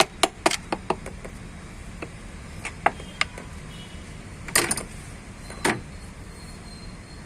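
Sharp metal-on-metal clicks and knocks of hand tools and engine parts during piston fitting: a quick run of about five in the first second, a few scattered ones after, and a short cluster about four and a half seconds in.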